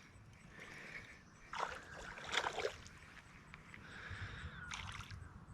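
Faint splashing and sloshing of water from a small hooked fish being reeled in at the surface, in a few short bursts about one and a half and two and a half seconds in and again near the end.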